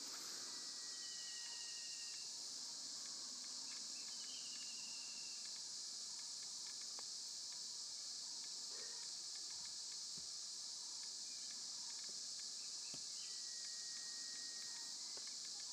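Steady high-pitched chorus of insects, with a few short bird whistles.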